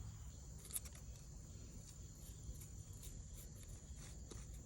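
Faint, steady high trill of crickets, with a few faint small clicks.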